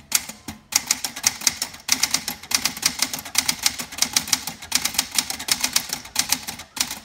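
A 1964 Sears Celebrity manual portable typewriter, a Smith-Corona-built machine, being typed on in a quick, steady run of keystrokes, several a second, with one short pause about half a second in. The typebars strike the platen through the black half of the ribbon.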